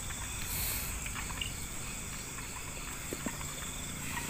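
Night insects, crickets, trilling steadily, with a brief rustling hiss about half a second in.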